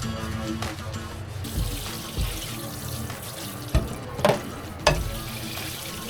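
Water running from a tap into a sink, starting about a second and a half in, with a few sharp clunks near the middle, over soft background music.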